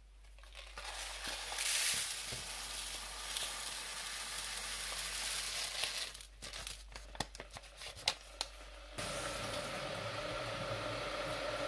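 Dry jasmine rice poured from a paper bag into a plastic sieve, a hissing rattle for several seconds. A few clicks and knocks follow, then from about three-quarters of the way in a kitchen tap runs steadily to rinse the rice.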